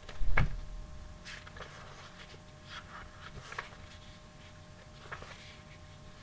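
A single dull thump about half a second in, then faint scattered clicks and rustles over a steady faint hum.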